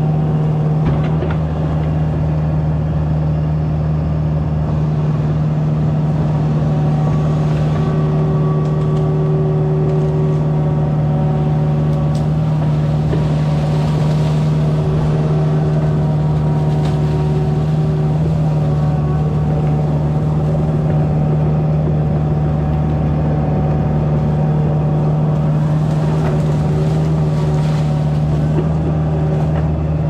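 Kubota mini excavator's diesel engine running steadily at working speed while the arm and bucket dig and dump mud. Under its constant low drone, fainter higher tones rise and fade as the machine moves.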